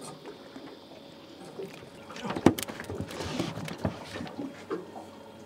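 A sharp knock about two and a half seconds in, followed by a second or so of smaller knocks and rustling: a freshly caught tailor dropped onto a boat's carpeted deck and flapping.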